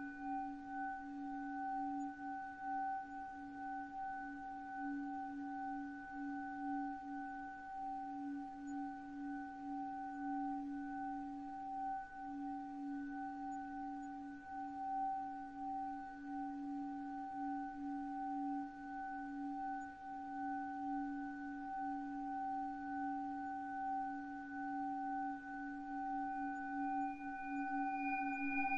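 Time-stretched sound effect: a sustained, bell-like drone of several steady ringing tones, the lowest one wavering in level. A higher tone joins about two seconds before the end.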